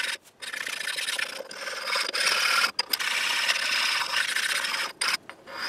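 A sharpening stone rubbed over the metal angle plate, stoning off a burr that is suspected of making the plate rock on the milling table. The rubbing runs steadily, with a brief break near the middle, and ends in a couple of short strokes.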